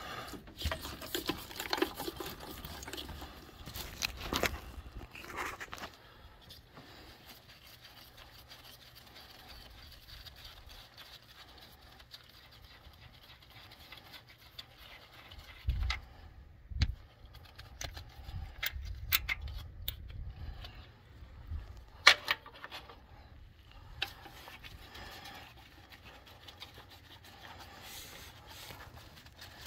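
Ratchet wrench clicking rapidly for the first few seconds as a socket works the rocker-arm bolts on a diesel cylinder head. After that come scattered clinks and knocks of metal parts being handled, the sharpest a single loud click a little past the middle.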